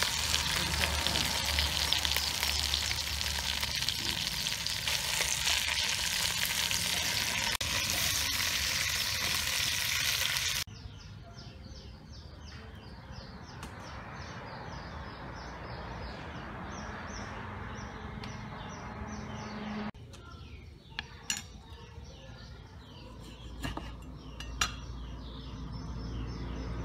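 Fish and banana flower sizzling in a steel pot while metal tongs stir and turn them: a loud, steady hiss that cuts off abruptly about ten seconds in. Quieter handling noise follows, with a few sharp clicks near the end.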